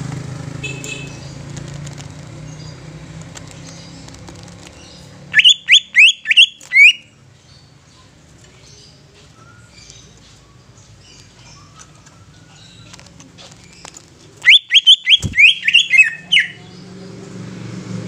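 A cucak ijo (green leafbird) sings two loud bursts of quick, rising whistled notes, about five notes some five seconds in and about eight more near the end.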